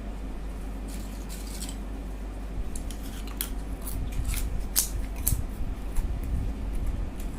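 Eating sounds over egg curry and rice: a series of sharp, wet clicks and smacks, more frequent in the second half, over a low steady hum.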